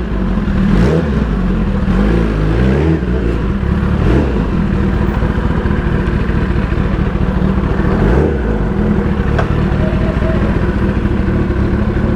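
Sport motorcycle engine running at low speed while the bike is ridden slowly. The revs rise and fall briefly a few times, about a second, two and a half seconds, four seconds and eight seconds in, between stretches of steady low running.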